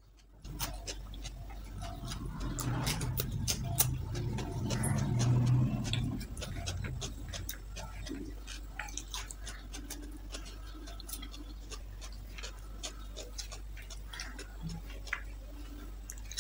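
Close-up eating sounds: chewing with wet mouth clicks, louder for a few seconds about two seconds in, then soft sticky clicks and squelches as fingers squeeze and mix cooked rice on a banana leaf.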